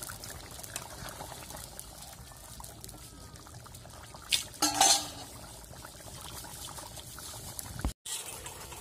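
Fish curry bubbling at a boil in an iron karahi, a steady watery bubbling. Two sharp knocks come about four to five seconds in.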